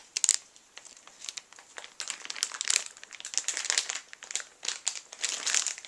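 Packaging crinkling and rustling as it is handled, with sharp crackles coming in irregular clusters.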